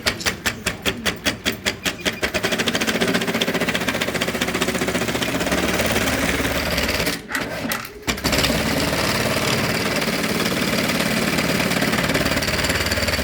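Juki AMS-221EN2516 computer-controlled pattern sewing machine sewing: it starts with slow, separate stitches at about four or five a second, then speeds up about two seconds in to a fast, steady run. The run breaks off briefly twice around the middle, then resumes and stops near the end.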